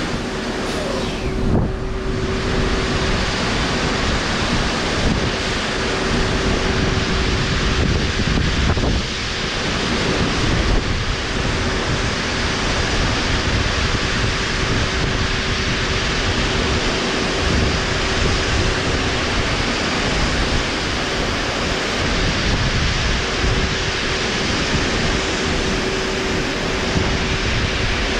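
Fine gravel pouring in a continuous stream off the back of a raised end dump trailer over its swung-open tailgate: a steady rushing hiss, with wind rumbling on the microphone.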